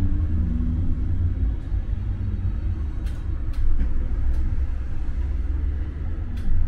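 Tram running on its rails, heard from inside the car as a steady low rumble, with a low motor hum that dies away in the first second. A few short, sharp clicks come between three and four and a half seconds in, and one more near the end.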